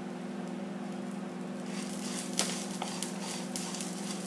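Steady low background hum, with scattered light clicks and crackles from about two seconds in, typical of dry roasted red chilies and curry leaves being handled as their stems are picked off.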